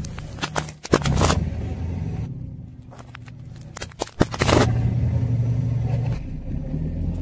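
A car engine running at low speed, with two clusters of sharp cracks and crunches, about one second in and again about four seconds in, as a tyre rolls over and crushes objects.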